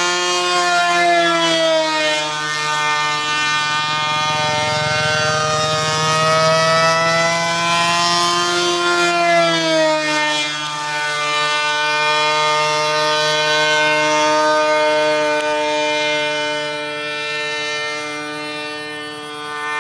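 Petrol engine of a model F-22 airplane running continuously, a steady siren-like whine whose pitch slowly drifts up and down.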